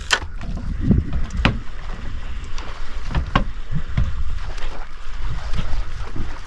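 Low rumble of wind buffeting the microphone over open water from a boat, with three or four sharp clicks at intervals.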